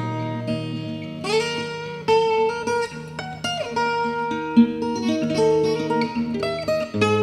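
Instrumental break in a song: acoustic guitar picking a melody over sustained low notes, with one note sliding down about midway.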